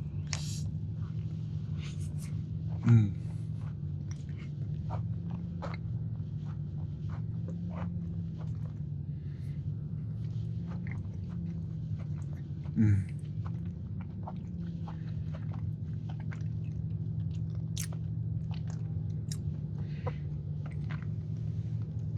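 Close-up chewing and wet mouth clicks of a person eating a soft skillet cookie topped with toffee and vanilla bean mousse, over a steady low hum. Twice, about three seconds in and again near thirteen seconds, a short louder low sound that falls in pitch.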